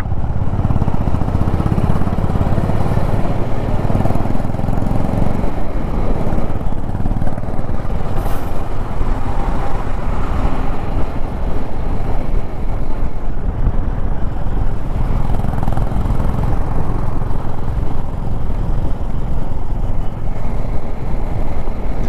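Motorcycle being ridden along a road: steady engine and wind noise throughout.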